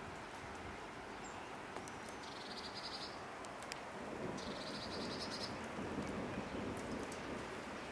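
Outdoor ambience with a steady background hiss, broken by two short high trills about a second long and two seconds apart. The background noise grows louder about halfway through.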